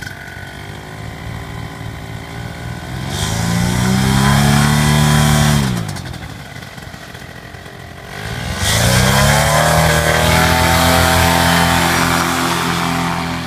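Paramotor engine and propeller idling, revved up for a few seconds, dropped back to idle, then opened up again and held at high revs for the takeoff run.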